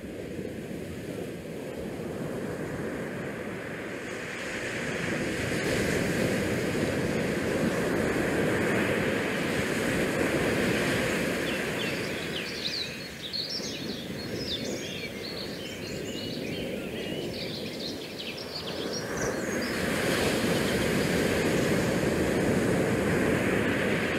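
Rushing water of the ship's wake along the hull mixed with wind on the microphone, swelling and easing as the deck is walked. For several seconds around the middle, a flurry of faint high squeaks sits over the rush.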